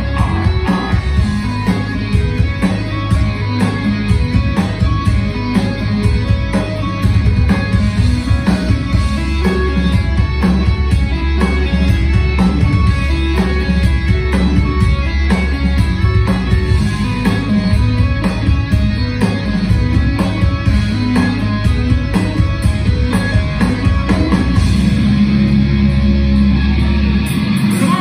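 Live metal band playing at full volume: distorted electric guitars over heavy bass and a steady drum beat.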